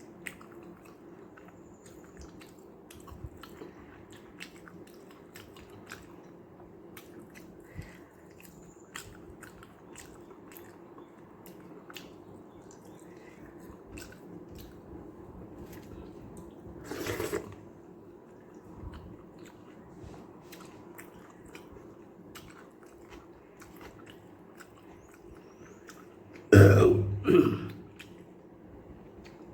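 A man eating rice mixed with watery sambar close to the microphone: wet chewing and small mouth clicks. A louder throat noise comes about halfway through, and near the end two loud throat sounds follow close together, like throat clearing.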